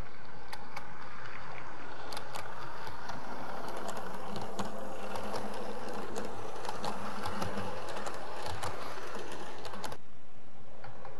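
00 gauge model train running on the layout: a steady electric motor hum with a fast patter of clicks from the wheels over the rail joints. The sound drops suddenly near the end.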